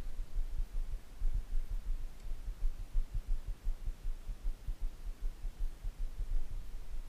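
Wind buffeting the camera's microphone: an irregular low rumble of uneven thumps, with nothing else standing out.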